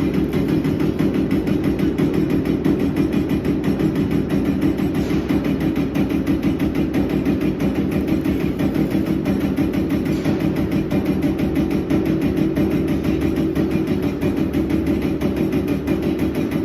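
Ritec full-electric servo CNC turret punch press running, its ram striking sheet metal in a rapid, even train of punch strokes, several a second, over a steady machine hum.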